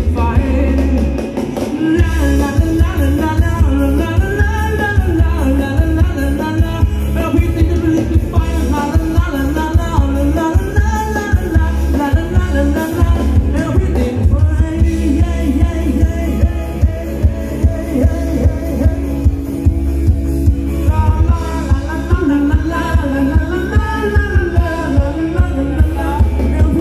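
Live band playing up-tempo Thai ramwong dance music with a singer over a steady drum beat; the singing drops out briefly about twenty seconds in.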